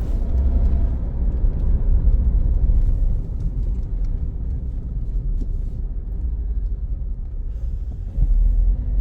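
Suzuki Jimny driving on a paved road, a steady low rumble of engine and tyres heard from inside the cabin, growing louder near the end.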